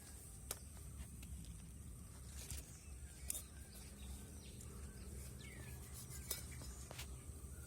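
Quiet outdoor ambience: a faint steady high insect whine, a short falling bird chirp about five and a half seconds in, and a few sharp clicks scattered through, the loudest a little after three seconds.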